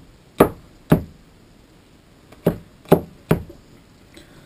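Cleaver chopping garlic on a wooden cutting board: five sharp chops, two in the first second and three more in quick succession about two and a half seconds in.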